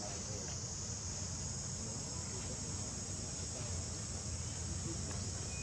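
A steady, high-pitched drone of insects over an even low rumble.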